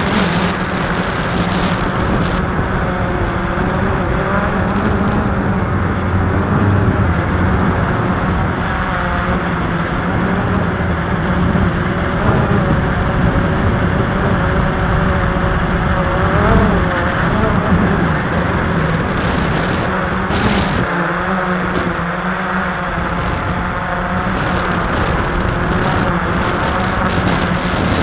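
Multirotor camera drone's motors and propellers humming steadily, picked up by the camera mounted on it, with the pitch wavering as the drone manoeuvres.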